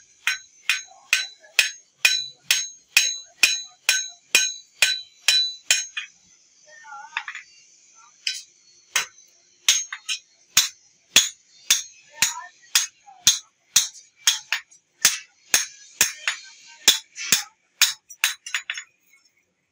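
Hand hammer striking a steel khurpa (hand spade) blade on an iron anvil block, steady blows about two a second, each with a high metallic ring. The blows stop for about two seconds in the middle, then resume.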